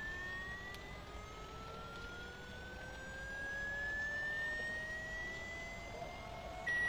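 Water-ejection tone played at full volume through a smartphone's bottom speaker to drive rainwater out of it: a thin electronic tone rising slowly in pitch, with fainter tones rising alongside it, then switching to a louder steady high tone right at the end.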